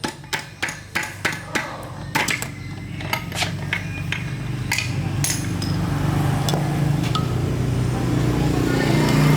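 Sharp metallic clinks and knocks, about three a second, for the first few seconds. Then a motor's steady low drone comes in and slowly grows louder.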